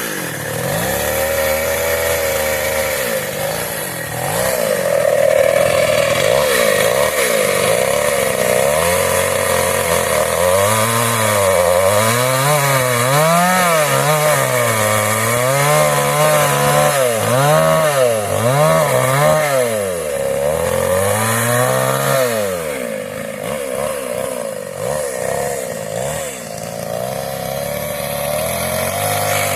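Kawashima gasoline chainsaw running and cutting wood, its engine pitch repeatedly dipping and rising again as the chain bites into the cut and eases off.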